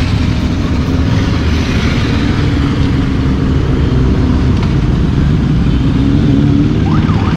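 A procession of motorcycles riding past one after another at low speed, their engines running with a steady, loud rumble.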